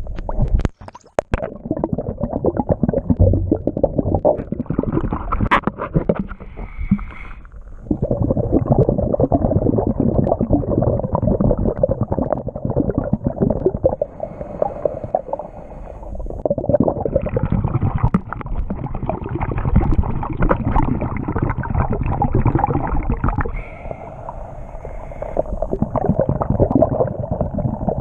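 Underwater sound picked up by a submerged camera: dense, muffled rushing and gurgling of water moving past the housing, rising and falling in waves. A few sharp clicks about a second in as the camera goes under.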